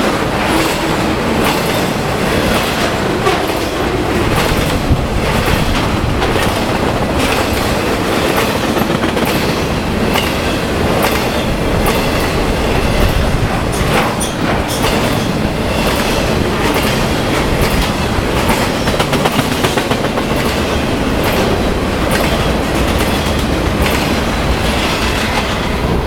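BNSF intermodal freight train, trailers on flatcars, rolling past at speed. The steel wheels keep up a steady loud rumble and clickety-clack over the rail joints.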